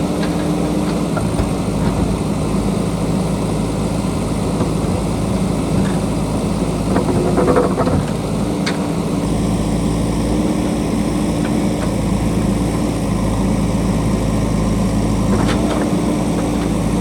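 JCB backhoe loader's diesel engine running steadily while it digs, with a few sharper knocks about eight seconds in and again near the end.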